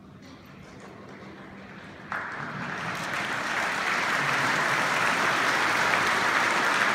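Audience applause breaks out suddenly about two seconds in and swells, following a quiet moment with a faint low held tone that dies away.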